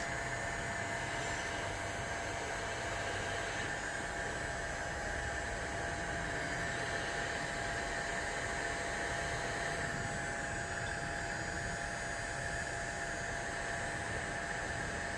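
An electric air blower running steadily with an even whooshing hiss and a faint steady hum underneath.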